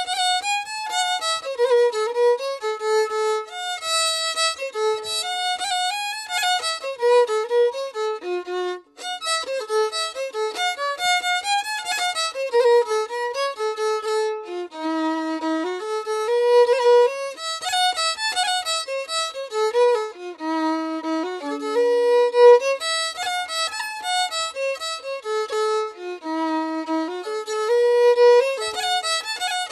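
Background music: a single violin playing a melody, with a brief break about nine seconds in.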